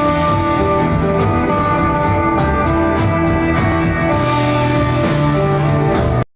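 Live desert rock band of electric guitar, bass and drum kit playing an instrumental jam, with sustained guitar notes over a bass line and drum and cymbal hits. The sound cuts off abruptly about six seconds in.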